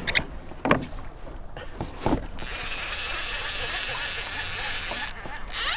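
Fishing reel buzzing steadily as line is pulled off against the drag, starting about two and a half seconds in and breaking off briefly near the end: a fish running with the line. A few light knocks come before it.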